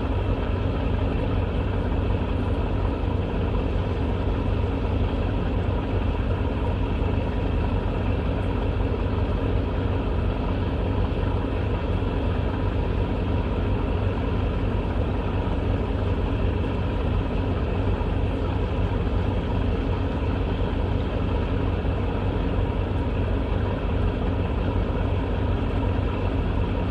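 Steady, low engine drone with a constant hum, unchanging throughout.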